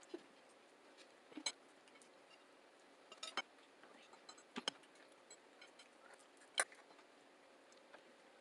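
Quiet eating sounds: a handful of short, sharp mouth or utensil clicks spaced a second or two apart while breakfast is eaten, the loudest about two-thirds of the way through.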